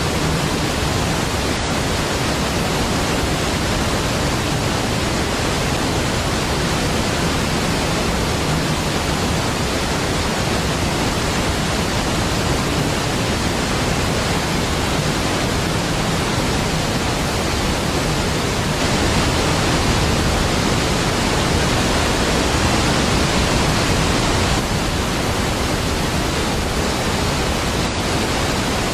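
Large waterfall, Niagara Falls, a steady, dense rush of falling water with deep low rumble, swelling slightly about two-thirds of the way through.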